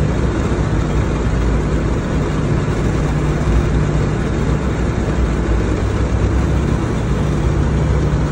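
B-17's four Wright R-1820 Cyclone radial engines droning steadily in cruise, heard from inside the fuselage, with a deep hum under a broad rush of air and airframe noise.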